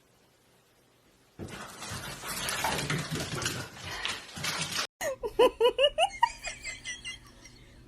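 A splashing, water-like noise starts abruptly about a second and a half in and runs for about three and a half seconds. After a sudden cut, a high voice laughs in quick wavering bursts.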